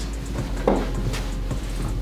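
A patient's lower back cracks once under a chiropractic side-posture adjustment: a short thump, then a sharp crack about a second in, over steady background music.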